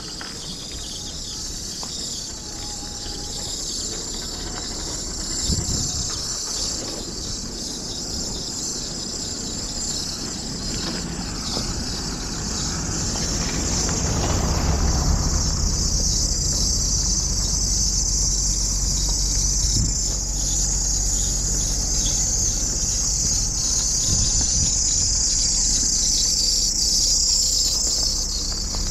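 Steady high-pitched chorus of insects, growing louder about halfway through, over a low steady rumble with a faint hum underneath.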